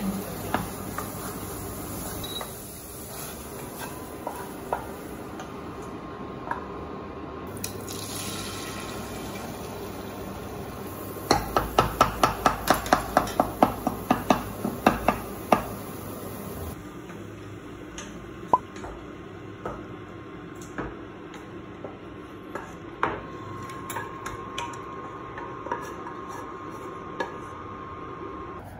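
Wooden spatula stirring and scraping scrambled eggs around a nonstick saucepan, with scattered light knocks against the pan. About eleven seconds in comes a quick run of louder taps, roughly three or four a second for about five seconds.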